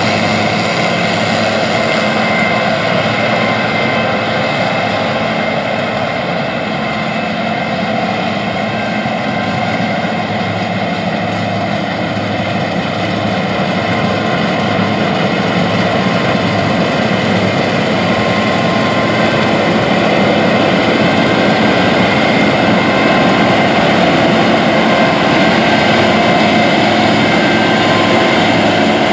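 John Deere 9500 Maximizer combine harvesting wheat: its 7.6-litre diesel engine and threshing machinery run with a steady drone, growing a little louder in the last third.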